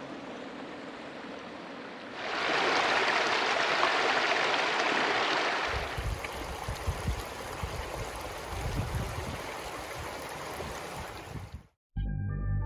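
Shallow rocky creek flowing, its rushing hiss louder from about two seconds in, with low irregular rumbling under it from about six seconds. Near the end it cuts off abruptly and soft ambient music begins.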